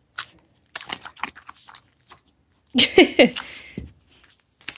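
A husky chewing a small treat: a scatter of short, soft crunches, with a brief vocal sound about three seconds in.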